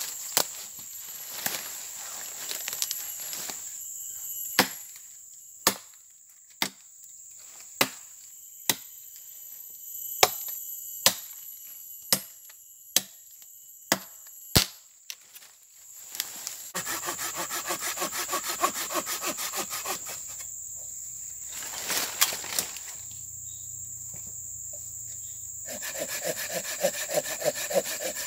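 Machete chopping a wood branch, single sharp knocks about a second apart, then a folding saw cutting through the wood in quick rhythmic strokes. A steady high insect drone runs behind it.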